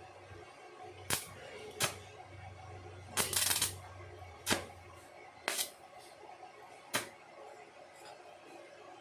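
Welding machine striking an arc in short crackling bursts, six in all, the fourth lasting about half a second, as if tacking, over a low electrical hum.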